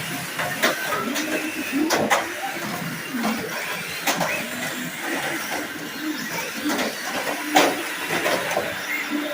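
Radio-controlled cars' motors whirring and changing pitch as they drive and ram each other, with sharp plastic knocks of collisions, the loudest about two seconds in and again near the end.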